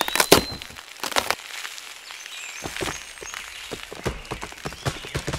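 A series of sharp cracks and crackles: a few loud ones in the first second and a half, then many smaller clicks and crunches.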